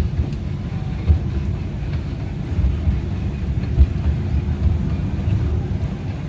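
Steady low rumble of a small theme-park train running along its track, heard from on board, with a few faint knocks.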